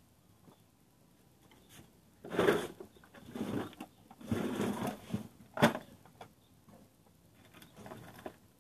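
Elgin sewing machine run in a few short bursts of under a second each, with a sharp click a little over halfway through and a weaker burst near the end.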